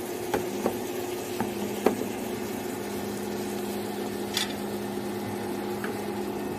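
Chicken leg simmering and sizzling in passion fruit juice and coconut oil in a frying pan, a steady bubbling hiss. A steady low hum joins about a second and a half in, with a few light clicks early on and a sharper click near two seconds.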